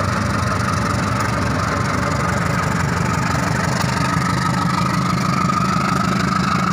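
Diesel locomotive of a passenger train running as it passes and pulls away: a steady engine drone with a steady high whine over it.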